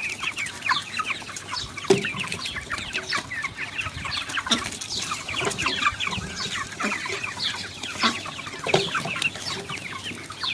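A flock of chickens clucking and calling nonstop as they feed, a dense chatter of many short calls that slide downward in pitch, with a few sharper knocks among them.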